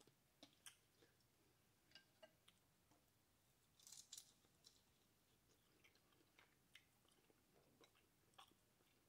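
Very faint close-up eating sounds of shellfish: scattered small mouth clicks and chewing, with a brief louder cluster about four seconds in as a piece goes into the mouth.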